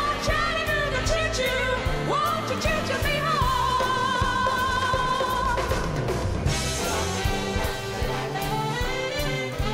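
Background music: a band with a lead melody holding long, wavering notes over repeating bass notes.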